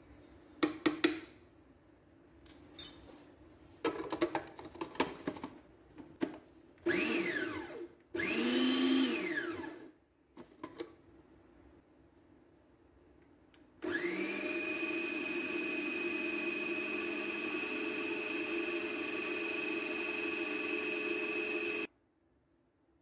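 Kenwood food processor motor. It runs in two short pulses whose pitch rises and falls as the blade spins up and down. It then runs steadily with an even whine for about eight seconds and cuts off sharply. Clicks and clatter of the lid being fitted come first.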